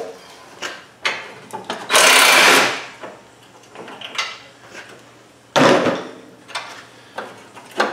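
Cordless driver run in one short burst of just under a second, backing out a bolt, with clicks and clatter of parts being handled and a second sharp, loud burst about five and a half seconds in.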